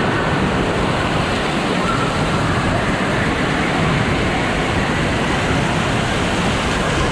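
Steady rush of water pouring down from a water park play structure and splashing onto the flooded floor.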